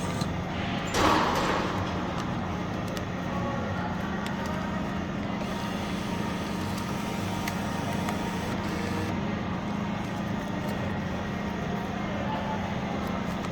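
Steady low hum at a drink vending machine, with one loud clattering rush about a second in that dies away within a second, and a few faint clicks.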